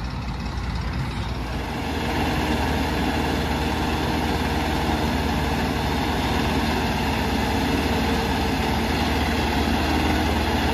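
Diesel engines of a Mahindra Arjun Novo 4WD tractor and a Swaraj tractor running hard together, pulling a fully loaded trolley stuck in deep mud. The engine sound rises about two seconds in, then holds steady under the load.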